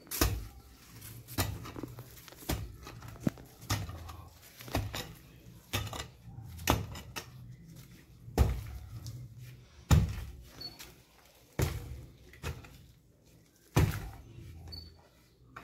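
A hoe chopping into the soil to dig a planting hole: repeated dull thuds, about one a second, irregular, with a few harder strikes in the second half.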